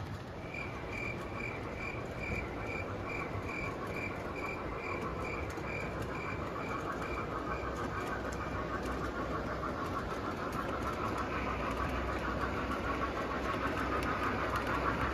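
O-gauge model trains rolling on three-rail track: a steady rumble and clatter of metal wheels that grows louder over the last few seconds as a steam locomotive with lit passenger cars approaches. A regular high chirping, about four a second, runs through the first half and then fades out.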